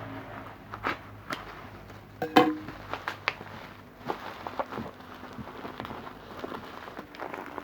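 Packaging being handled during unboxing: irregular clicks, taps and knocks, the loudest a short cluster about two and a half seconds in.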